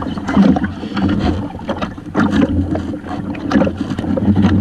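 A boat's dive ladder knocking and rattling against the hull as a diver grips it and climbs, with irregular sharp knocks over a steady low hum of wind and water.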